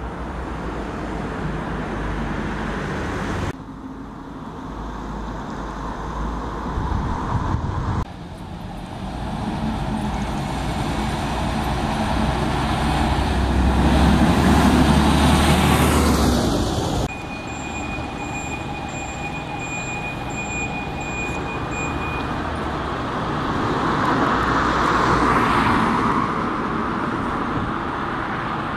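Diesel single-deck bus engines running in a bus station, in several short takes joined by sudden cuts. The loudest is a bus driving past close by about halfway through; another bus engine builds up near the end, and a thin steady high whine is heard for a few seconds after the middle.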